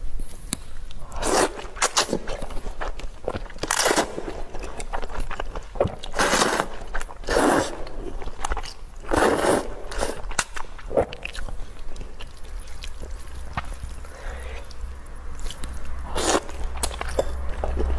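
Close-miked eating sounds of a person eating noodle soup: repeated bites and chewing, with a few longer noisy bursts at irregular intervals.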